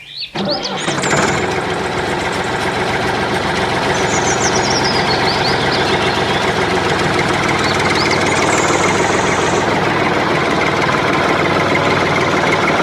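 An engine starts and then runs steadily at idle.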